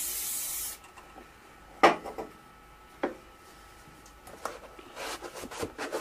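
GT85 aerosol spray can hissing, then cutting off abruptly under a second in. Two sharp knocks follow about a second apart, the first the loudest sound here. Then a cloth rag rubs over the motorcycle's bodywork in quick strokes.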